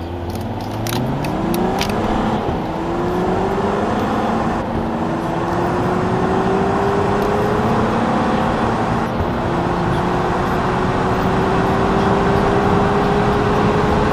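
A car engine accelerating hard from a standstill through the gears, heard from inside the cabin. Its pitch climbs steadily and breaks off and restarts lower a few times at the gear changes, with a few sharp clicks in the first couple of seconds.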